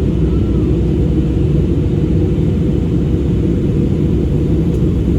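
Steady low rumble of an Airbus A320-216's CFM56 engines and airflow, heard inside the passenger cabin in flight.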